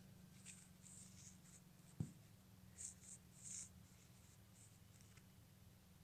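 Near silence over a low hum, broken by faint scratching and rustling in several short clusters and one soft thump about two seconds in.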